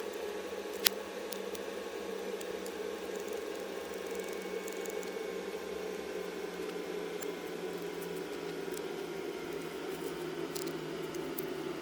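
Slime being handled, with soft squishes and faint scattered clicks over a steady background hum. One sharp click comes about a second in.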